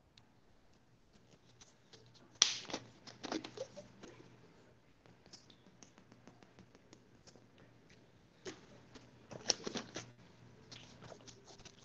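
Scattered small clicks and taps close to a microphone, loudest in two clusters about two and a half and nine and a half seconds in, over a faint steady hum.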